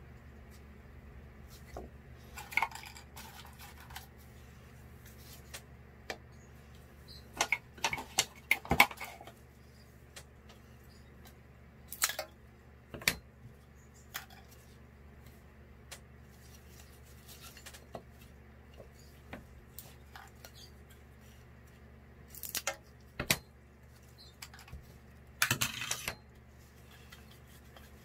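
Small hard objects clinking and clattering as they are handled and set down, in short scattered bursts with the loudest about nine seconds in, over a faint steady low hum.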